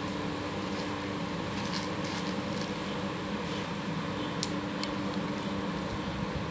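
Steady mechanical hum from the surroundings, with a few faint short clicks and crinkles about two seconds in and again around four and a half seconds as the plastic-wrapped mechanical seal parts are handled.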